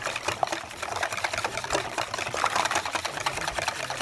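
Wire whisk beating eggs and cream in a stainless steel bowl: a fast, steady clicking of the wire tines against the metal.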